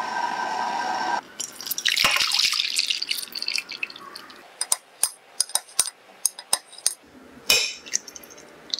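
A pot of liquid at the boil hisses steadily and cuts off about a second in. Liquid is then poured from a glass measuring jug into a glass baking dish, splashing and trickling for about two seconds. After that comes a run of about a dozen sharp clicks and taps, then a louder scrape as a metal spoon scoops set jelly from the glass dish near the end.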